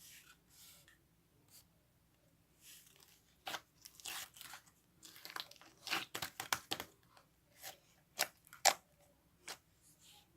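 Slime being pressed and stretched by hand, making a run of sharp clicks and crackling pops that is thickest about halfway through.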